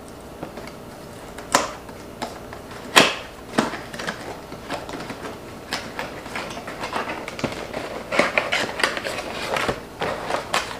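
Small cardboard product box being handled and opened: scattered taps and clicks, the two loudest about a second and a half and three seconds in, then a run of light rustling and clicking as the lid is worked open.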